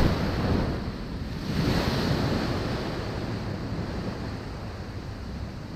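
Ocean surf washing on the beach, with wind on the microphone. A wave swells up about a second and a half in, then the wash slowly fades.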